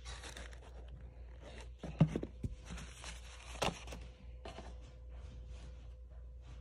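Tissue paper rustling and crinkling while a rubber jelly sandal and its box are handled, with scattered light clicks and two sharper knocks, about two seconds in and again shortly before four seconds.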